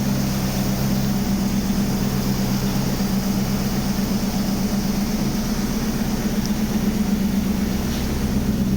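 Mercedes-Benz M119 V8 engine idling steadily, with an even low hum.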